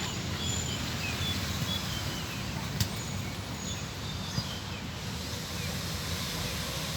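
Steady outdoor background rumble with small birds chirping in short, high, falling notes throughout, and two sharp knocks about three and four and a half seconds in.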